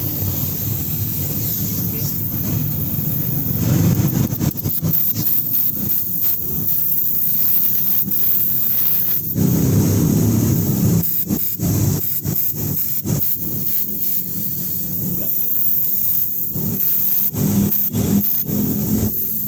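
Small airbrush spray gun hissing as compressed air and thinner are sprayed through its narrow hose and newly joined connector, the hiss steady throughout. A lower rumble under it runs steadily at first, then breaks up into choppy bits with short gaps from about four seconds in.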